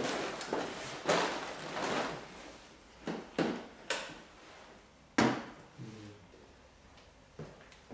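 A series of sharp knocks and clunks, the loudest a little past halfway, as a camping lantern and other things are handled and set down on a tiled tabletop.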